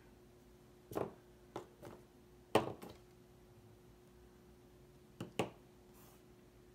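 Hands handling rolls of washi tape on a paper planner page: a few short taps and clicks, the loudest about two and a half seconds in, over a faint steady hum.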